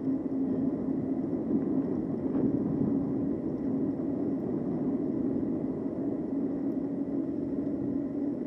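Riding noise from an e-bike moving along a paved street: steady wind rush on the microphone and tyre noise, with a steady low hum throughout.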